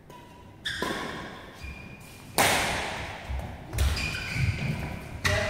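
Badminton rally: rackets striking a shuttlecock, the hardest hit about two and a half seconds in ringing out in the hall's echo, with footfalls thudding and shoes squeaking on the court mat.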